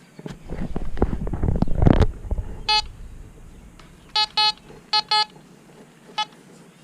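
A couple of seconds of rough scraping and rustling, then a handheld metal detector giving six short, high electronic beeps in uneven groups, signalling a buried metal target.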